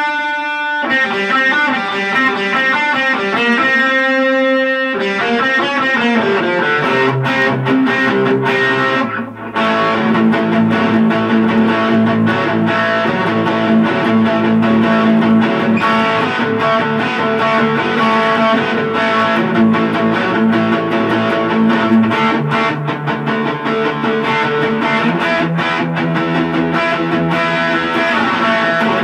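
Electric guitar played through a Boss Katana Mini amp on its crunch channel with the delay on. A few single notes ring out over the first five seconds, then after a short break about nine seconds in comes dense, distorted chord playing.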